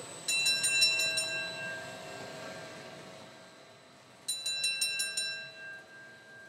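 A bell rung in two quick bursts of several rapid strokes each, the first just after the start and the second past the middle. Each burst goes on ringing and slowly fades after the strokes stop.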